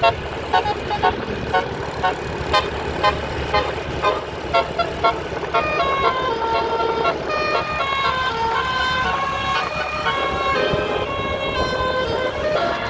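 A bus's musical telolet air horn (basuri type) playing a tune. First come short, evenly spaced toots about twice a second, then from about halfway held notes that step up and down in pitch.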